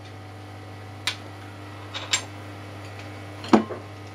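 Four light clicks and taps of kitchen utensils on a tiled counter: a small vanilla bottle and a teaspoon being set down and a small bowl knocking against the glass mixing bowl, the last tap the loudest, over a low steady hum.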